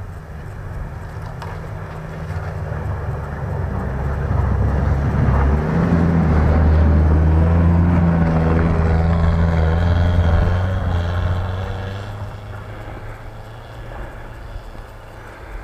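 An SUV's engine running as it drives past on a snowy track. The steady low engine note grows louder, peaks about halfway through as the vehicle passes close, then fades as it pulls away.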